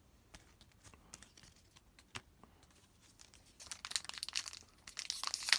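Foil wrapper of an Upper Deck hockey card pack crinkling and tearing as it is opened, starting about three and a half seconds in after a few faint clicks.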